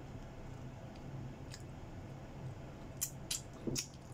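A person eating chicken wing tips with chopsticks: a few sharp clicks close together near the end, over a steady low hum.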